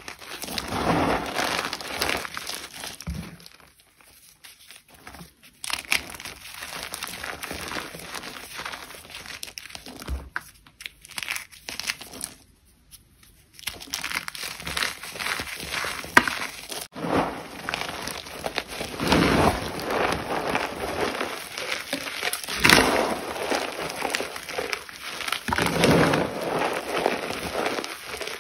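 Gym chalk being crushed and crumbled, crunching and crackling in irregular bursts with a couple of short pauses.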